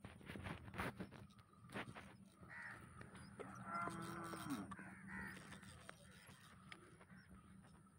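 Crows cawing a few times, with a longer, lower drawn-out animal call about halfway through. A few light knocks come in the first two seconds.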